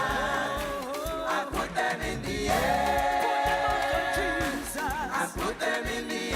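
Gospel choir singing, with long held notes.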